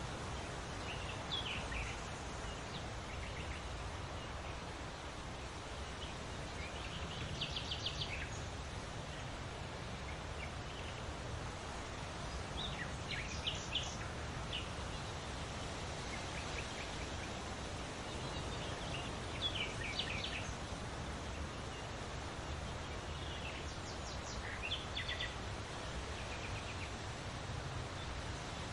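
Birds singing over a steady rush of wind through leaves. Short bursts of quick, repeated high notes come every few seconds.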